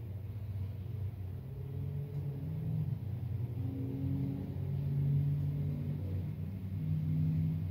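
Cars passing on a rain-soaked road: a steady low rumble of traffic, with engine and tyre hum swelling as vehicles go by, loudest about five seconds in and again near the end.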